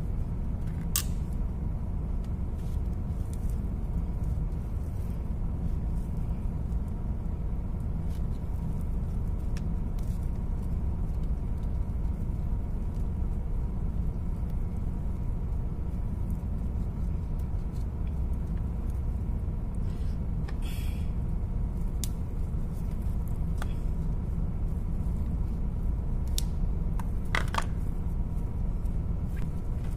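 Steady low rumble of running machinery in the background, with a few faint clicks and scrapes of a metal tool on battery terminals and cable lugs.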